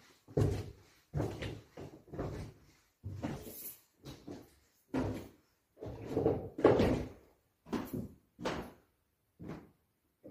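Footsteps walking away: a steady run of heavy thuds, somewhat more than one a second, loudest about halfway through.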